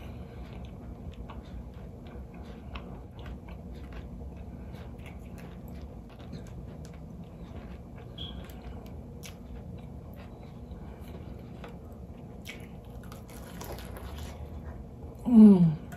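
Close-miked chewing and biting of breaded fried catfish, with scattered small crunches and mouth clicks over a low steady background hum. Near the end comes one short, falling 'mmm' hum of the voice.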